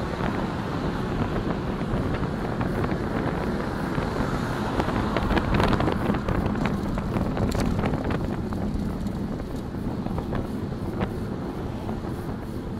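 Wind buffeting a bike-mounted camera's microphone as the bicycle rides along. A car overtakes close alongside, its engine and tyre noise swelling about five seconds in and then fading as it pulls ahead.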